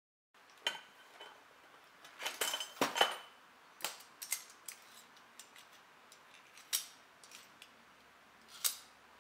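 Steel F clamps being handled and set down on a workbench: a string of uneven metallic clinks and knocks, loudest in a cluster about two to three seconds in, then scattered lighter clicks.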